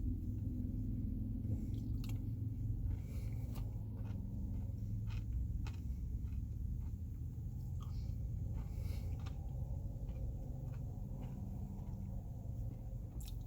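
A person eating a soft-serve Blizzard with Pixy Stix candy pieces: chewing and wet mouth sounds with scattered small clicks, over a steady low hum.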